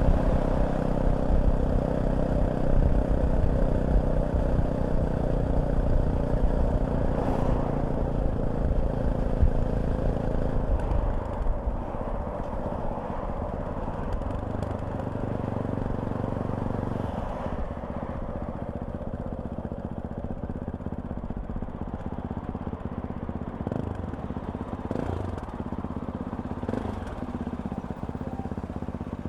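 Fantic Caballero 500's single-cylinder engine running as the bike is ridden, at higher revs for the first ten seconds or so. It then settles to a quieter, lower running for the rest.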